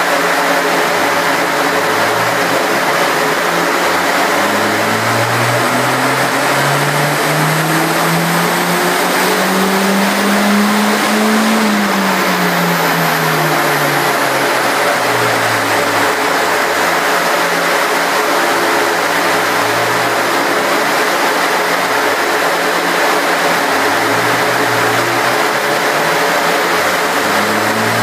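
Toyota Celica GT-Four RC's turbocharged four-cylinder, fitted with an aftermarket air filter and exhaust, on a rolling road. It pulls steadily up through the revs under load for several seconds and peaks about eleven seconds in. It then drops back quickly, runs lower and uneven, and starts climbing again near the end, over a steady loud rush of air from the dyno cell's cooling fan.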